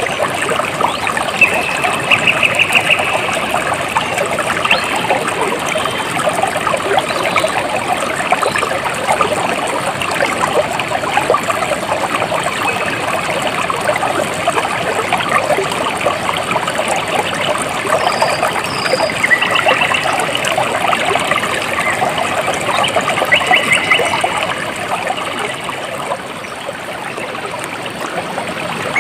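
Water trickling and babbling steadily like a small stream, with a few short trills standing out above it now and then. It turns slightly quieter in the last few seconds.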